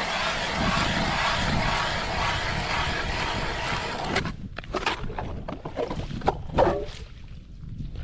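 Ice auger boring through lake ice, a steady grinding run that cuts off suddenly about four seconds in, followed by a few knocks and scrapes as ice chips are cleared from the hole.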